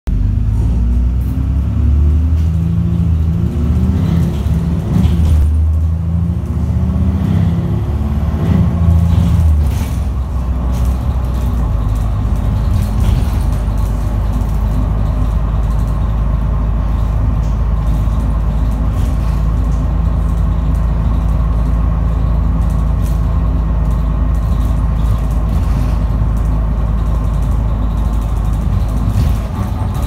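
Alexander Dennis Enviro 400 double-decker bus heard from inside the lower deck while moving. Over about the first ten seconds the engine note rises in steps as the bus pulls away, then it settles into a steady drone with a faint whine and light rattles, the kind of unusual running noise the uploader calls strange.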